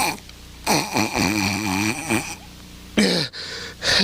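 A cartoonish vocal sniff through a clogged nose: one long voiced, wavering snuffle, then two short, sudden voiced snorts with falling pitch near the end.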